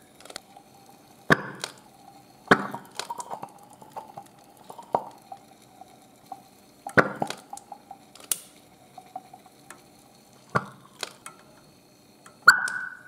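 Small sharp pops of hydrogen bubbles igniting in a flame over a test tube where lithium from a coin battery reacts with water, about eight at irregular intervals. The loudest, near the end, is followed by a brief high-pitched ring. A faint steady hum runs underneath.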